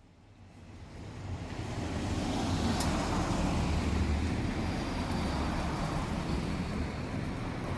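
A vehicle's rumble and running noise swells over the first two seconds, then holds steady.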